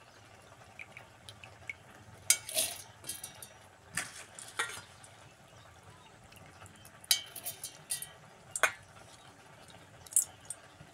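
Handfuls of soaked rice dropped from a stainless steel bowl into a steel mixer-grinder jar, with sharp clinks and short clattering of wet grains and metal, in several separate bursts.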